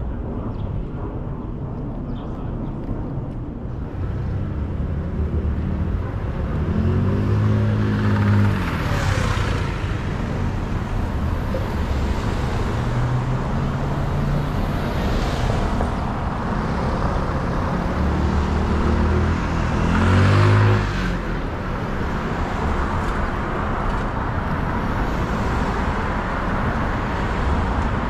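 City street traffic: cars driving past one after another, a steady rush of engines and tyres. Two closer vehicles pass loudly, one about seven seconds in and the loudest about twenty seconds in, their engine note falling as they go by.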